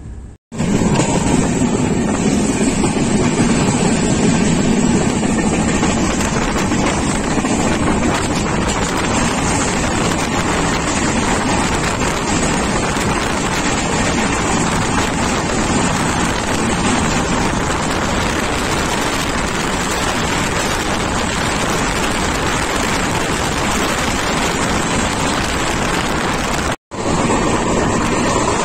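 Loud, steady rush and rumble of a train running at speed, as the 12834 Howrah–Ahmedabad SF Express passes on the next track. The sound drops out briefly just after the start and again near the end.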